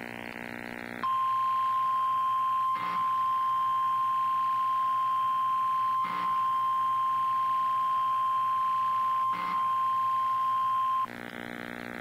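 NOAA Weather Radio 1050 Hz warning alarm tone: one steady high beep held for about ten seconds, starting about a second in and stopping about a second before the end, broken by three short crackles. A low buzzing drone is heard before the tone starts and after it stops.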